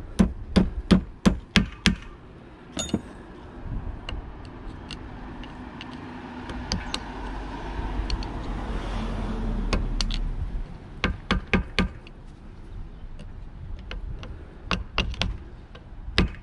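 A brass hammer taps a new U-joint's bearing cap into a driveshaft yoke, a quick run of sharp metallic taps at the start and a few more about eleven seconds in and near the end as the cap and C-clips are seated. In between, a low rumble swells and fades.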